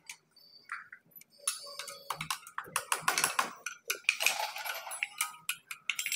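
Spanners and a wrench clicking and clinking irregularly against the nuts and metal of a tractor engine's cylinder head as they are worked by hand, with a couple of short scraping rasps about three and four and a half seconds in.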